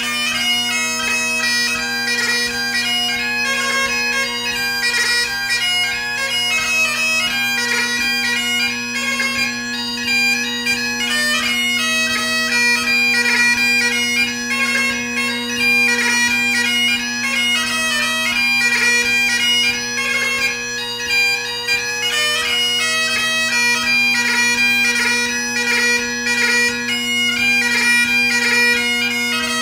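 Great Highland bagpipe played solo in a light-music (ceòl beag) set: a steady drone underneath a quick-moving chanter melody, without a break.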